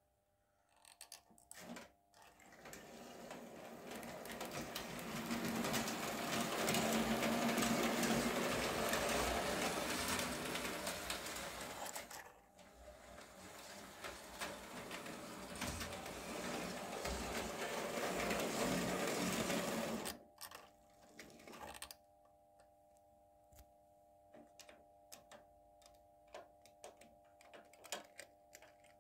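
Märklin model steam locomotive pulling goods wagons over metal model track: the motor and wheels make a steady whirring rattle that swells as the train comes close, twice. About twenty seconds in it drops away to a faint steady hum with light scattered clicks.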